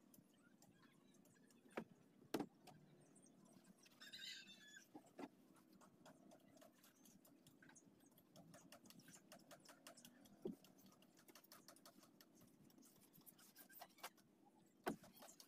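Near silence: a faint outdoor background with a few short, sharp knocks and clicks and a brief high chirp about four seconds in.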